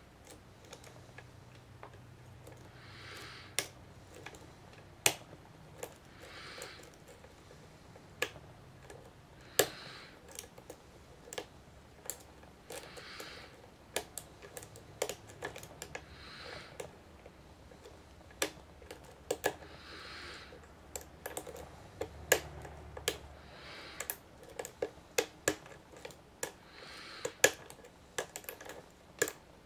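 Steel lock pick and tension wrench working the pins of a Master Lock No. 570 pin-tumbler padlock: irregular sharp metallic clicks and ticks, some much louder than others, coming thicker toward the end.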